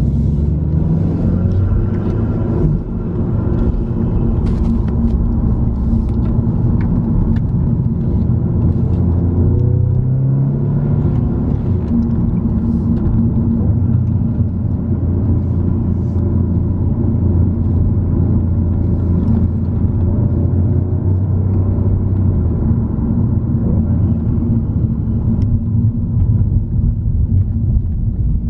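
Car engine and road rumble heard from inside a moving car. The engine pitch rises near the start and again about ten seconds in as it pulls through the gears, then settles into a steady low drone.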